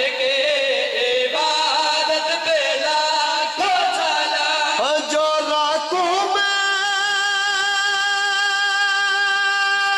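A man's voice singing devotional verse through a microphone, in an ornamented, gliding style, then holding one long steady note from about six seconds in.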